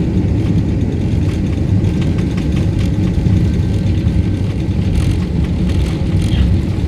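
Cabin noise of an Airbus A330-300 rolling on the ground after landing: a steady low rumble from its Rolls-Royce Trent 700 engines at low power and the airframe, with a few light clicks and rattles.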